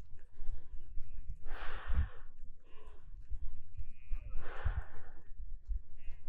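Heavy breathing: long, breathy exhales a few seconds apart, over a low rumble.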